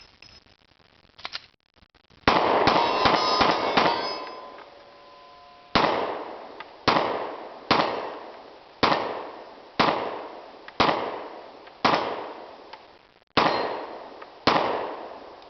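Glock 20 10mm pistol firing about fifteen shots: a fast string of five or six about two seconds in, with ringing from struck steel targets, then single shots roughly a second apart, each echoing away.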